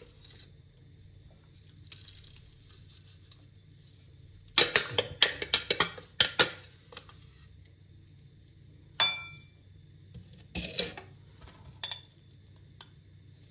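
Kitchenware knocks and clinks: ground hazelnuts being scraped and tapped out of a food-processor bowl into a glass mixing bowl, with a few quick knocks in clusters and one ringing clink about nine seconds in, then a metal spoon knocking against the glass bowl near the end.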